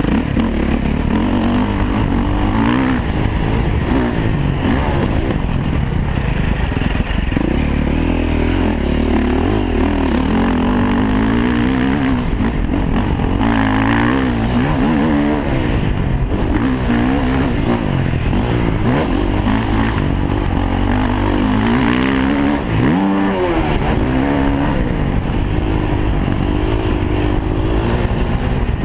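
Motocross bike engine at speed, heard close up from a camera on the bike, revving up and down without a break as the rider works the throttle and gears. A little past three-quarters of the way through the revs drop sharply for a moment, then climb again.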